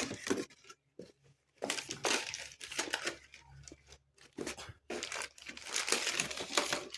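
Packaging being handled, crinkling and rustling in irregular spells with short pauses, as vacuum cleaner parts are unwrapped.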